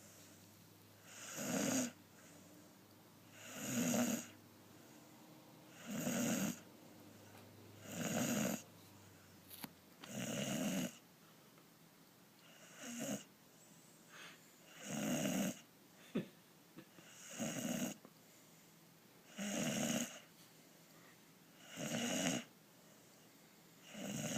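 Snoring in a steady rhythm, one loud snore about every two seconds, each lasting about a second; a few snores around the middle come out weaker.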